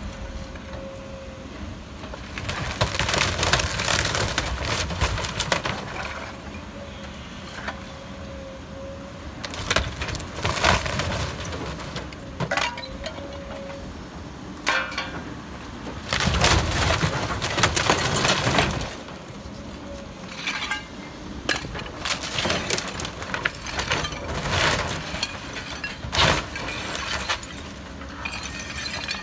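Excavator demolishing a wood-frame house: several bouts of crashing, cracking and breaking debris as the bucket tears into the walls, over a steady low rumble of the machine.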